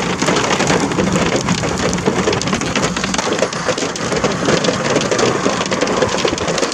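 Heavy rain falling steadily during a thunderstorm, a dense patter of drops striking close by.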